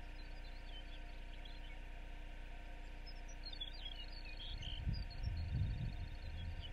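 Faint short high-pitched chirps and a brief rapid trill over a steady low hum. From about two-thirds of the way in, wind buffets the microphone in low, uneven rumbling gusts.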